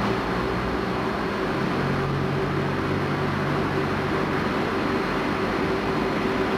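Berlin U-Bahn train on line U5 drawing slowly into the station, a steady running hum with a constant mid-pitched tone.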